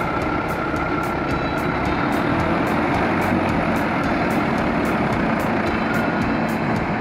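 A heavy vehicle's engine running steadily under load, with the regular beat of background music ticking about three times a second over it.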